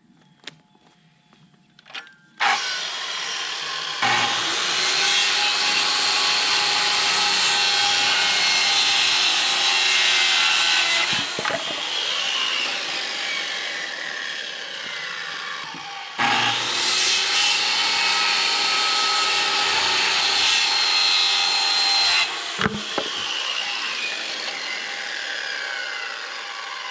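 Electric circular saw cutting through wooden boards: two long cuts of several seconds each, the blade's whine falling away as it winds down after each cut.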